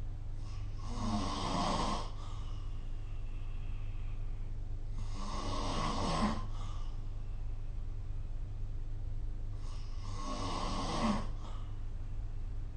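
A sleeping person snoring, recorded on a phone: three snores about four and a half seconds apart, each a rough breath lasting about a second and a half that ends in a low rattle, over a steady low hum.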